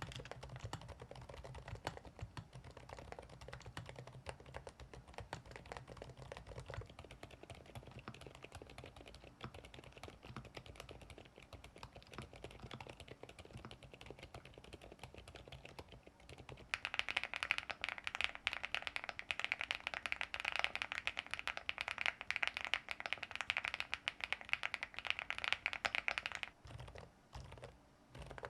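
Fast typing on mechanical keyboards, the board changing partway: a duller, more muffled typing for about the first sixteen seconds, then a much louder, brighter clacking for about ten seconds, ending in a few scattered keystrokes.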